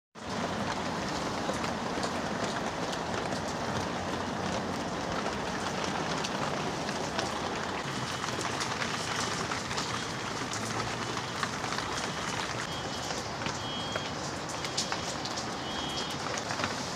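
Steady rain falling, with many small drops tapping on a surface.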